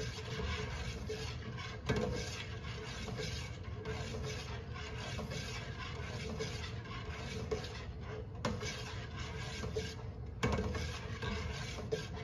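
A metal spoon stirs a large stainless steel stockpot of soy milk heating on the stove, scraping and rubbing against the bottom and sides in repeated strokes, with a few sharper clinks against the pot. A faint steady hum sits underneath.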